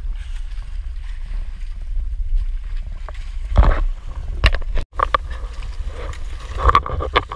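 Steady low rumble of wind and sea around an outrigger fishing boat, with a few sharp knocks and clatters from handling on the boat about three and a half and four and a half seconds in, and again near the end.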